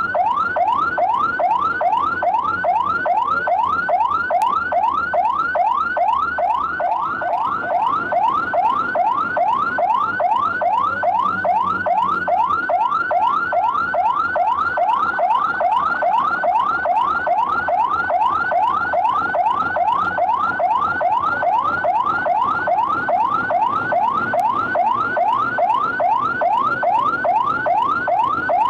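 Emergency vehicle siren in a fast yelp: quick rising wails, about three a second, repeating without a break.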